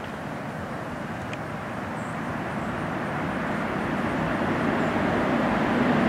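Distant engine rumble, a steady rushing noise that grows slowly louder over several seconds.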